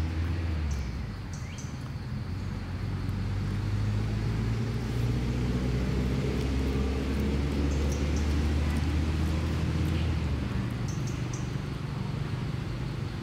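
A motor vehicle's engine running nearby: a steady low hum whose pitch rises slowly through the middle, its deepest part dropping away about ten seconds in.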